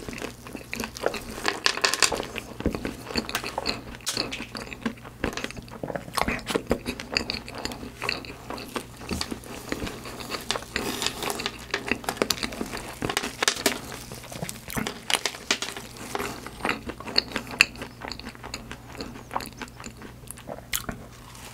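Close-miked chewing and crunching of profiteroles topped with sliced almonds and chocolate chips: a dense, irregular crackle of crisp bits breaking between the teeth, with a bite into another puff near the end.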